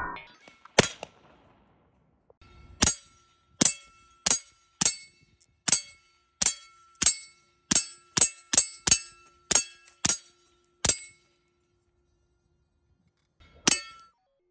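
Beretta M9A4 9mm pistol firing: one shot just under a second in, then after a pause a fast string of about fourteen shots, roughly two a second, and a last single shot near the end. The later shots go through a suppressor screwed onto the barrel.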